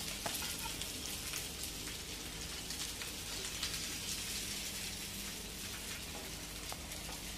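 Hot oil sizzling steadily around pieces of surmai (kingfish) shallow-frying in a pan, with a few faint clicks.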